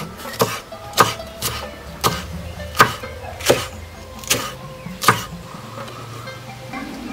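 Kitchen knife chopping green chilies on a wooden cutting board: about eight sharp knocks, roughly one every 0.7 seconds, stopping a little after five seconds in. Background music plays underneath.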